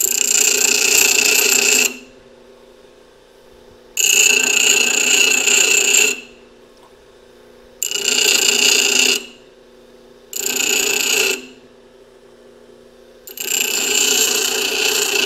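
Bench grinder grinding a steel twist drill bit by hand, the bit pressed to the wheel in five passes of about one to two seconds each, with a high, ringing grind on every pass. Between passes the grinder's motor and wheel hum steadily. This is rough grinding of the bit like any ugly piece of steel.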